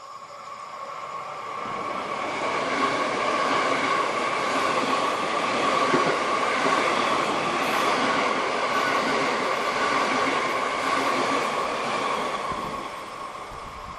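Limited express electric train passing through a station at speed. The rumble of wheels on rail swells over about three seconds, holds loud and steady for most of the time, then fades near the end.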